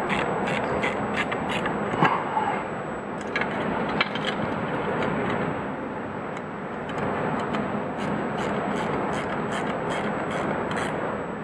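A wrench snugging up 5/16-inch nuts on the bolts of a push bar, with metal rubbing and runs of quick clicks at about three a second near the start and again near the end.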